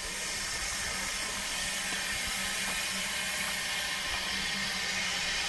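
Steady hiss of escaping steam from a narrow-gauge steam locomotive, growing a little louder, with a faint low hum under it.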